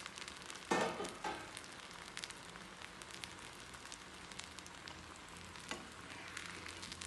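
Ghee sizzling on a hot tawa under frying stuffed flatbreads (paruppu poli) over low heat: a steady soft hiss with fine crackles. A brief louder sound comes about a second in.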